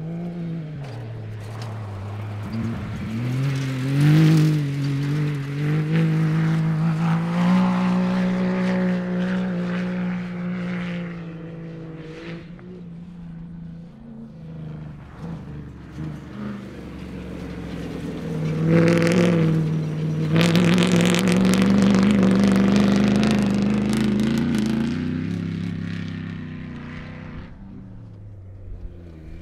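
Off-road racing vehicles' engines revving hard as they pass one after another. The pitch climbs through the gears and drops at each shift, louder around four seconds in and again over a long pass in the second half.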